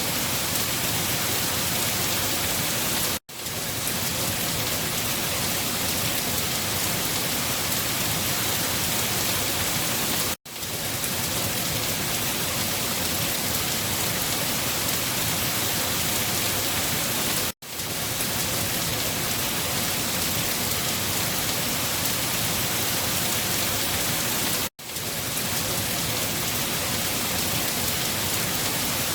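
Steady, dense rainfall, an even hiss of drops. It cuts out for an instant four times, evenly spaced about seven seconds apart.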